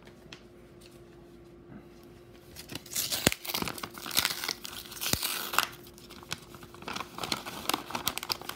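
A paper manila envelope being torn open along its edge, with loud crinkling and ripping of paper and two sharp clicks, starting about three seconds in. Lighter paper rustling follows near the end.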